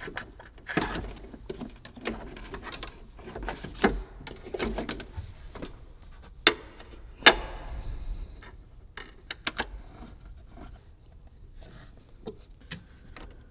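Hands fitting a Cobb CAN gateway module onto its bracket and screwing it down with a small hand tool: scattered clicks, taps and light knocks of parts and tool. Two sharp clicks come about six and seven seconds in.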